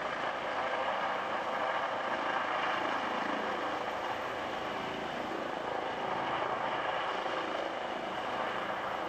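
ADAC air-rescue helicopter running steadily as it hovers low, its rotor and turbine giving an even, continuous noise.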